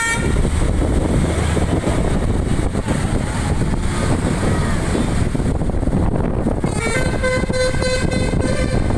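Garbage truck running with a steady rumble of engine and road noise; about seven seconds in, its Basuri musical 'telolet' horn starts a melody of short stepped notes.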